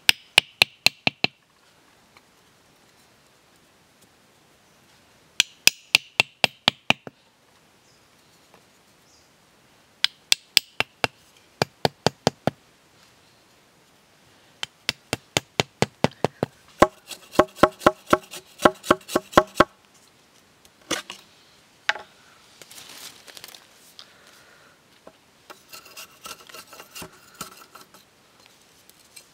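Runs of five or six quick, sharp taps, some with a hollow ring, as a knife taps split bamboo stakes into the ground. In the last few seconds the knife scrapes and shaves a bamboo stick in rapid strokes.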